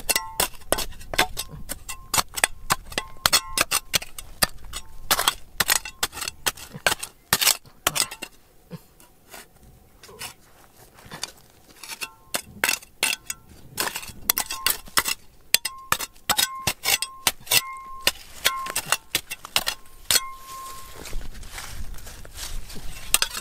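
A metal tool striking rock over and over: sharp, irregular clinks, often several a second, many of them followed by a brief metallic ring. The strikes thin out for a few seconds about a third of the way in, then pick up again.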